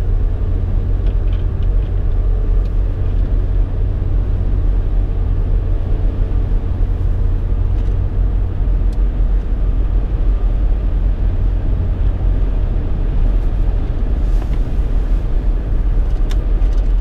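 Steady low road and engine rumble inside a moving car's cabin, with a few faint clicks near the end.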